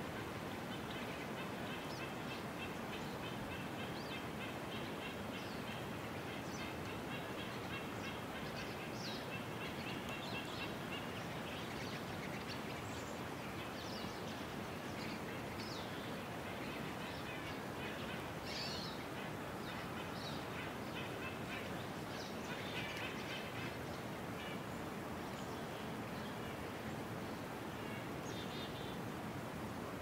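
Natural outdoor ambience: a steady, even hiss with small birds calling throughout, in quick series of high chirps and short, sharp downward-sweeping calls.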